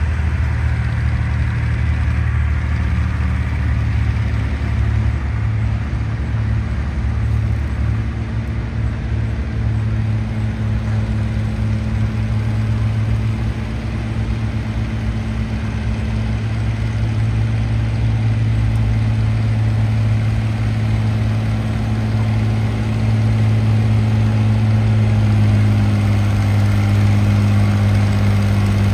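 A large engine running at a steady idle, a constant low drone that grows somewhat louder about three-quarters of the way through.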